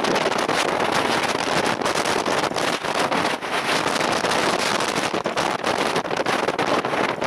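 Steady rushing wind noise on the microphone.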